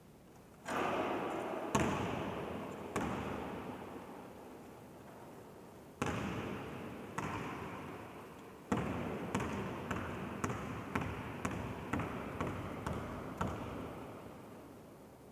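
A basketball bouncing on a hard sports-hall floor, each bounce ringing out in a long echo: a few scattered bounces, then steady dribbling about twice a second for several seconds, then it stops.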